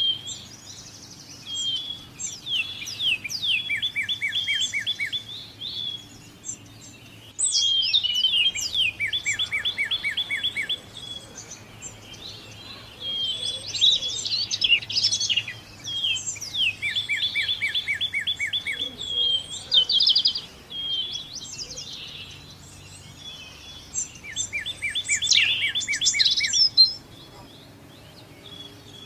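A songbird singing the same short song over and over, several seconds apart. Each song opens with a few high notes sliding down, runs into a rapid even trill and ends on a lower trill, over a faint steady background hum.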